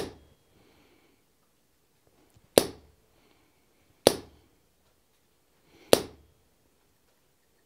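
Four sharp hammer blows on a hand-held round-ended steel punch, each driving a small dimple into a red-hot steel block on the anvil, spaced about one and a half to two and a half seconds apart, each with a short ring.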